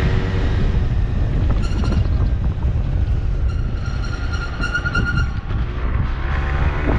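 Scooter running along a city street, with heavy wind buffeting on the microphone and a steady low rumble from engine and road. A brief high-pitched squeal sounds about two seconds in, and a longer, pulsing one from about three and a half to five seconds in.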